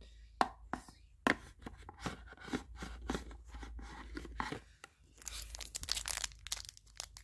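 Small clicks and knocks of hard plastic figure parts being handled and set against each other, then, about five seconds in, a couple of seconds of crackly plastic packaging crinkling.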